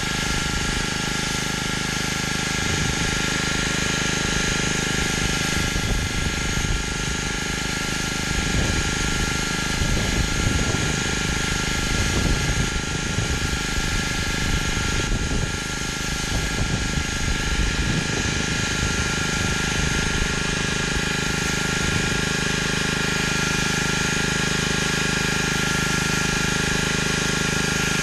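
Gas-engine pressure washer running steadily under the hiss of its high-pressure water spray cleaning concrete.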